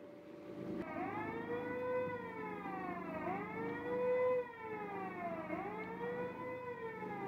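A siren wailing, its pitch rising and falling in slow sweeps about every two seconds, starting about a second in.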